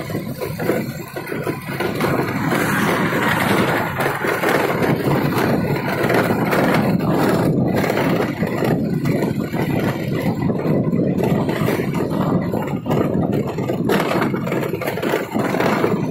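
A motorbike being ridden along a paved street: steady engine and road noise while it cruises.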